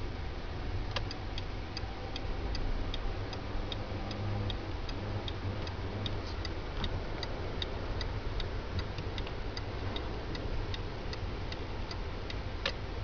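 Car turn-signal indicator clicking steadily, about two to three clicks a second, starting about a second in, over the low rumble of the engine and road inside the cabin. A sharper, louder click comes near the end.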